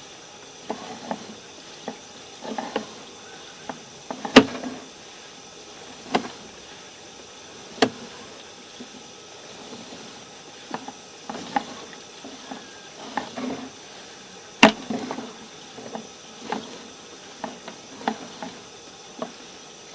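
Sewer inspection camera being pushed through the line: scattered sharp clicks and knocks, the two loudest about four and fifteen seconds in, over a faint wet, trickling background.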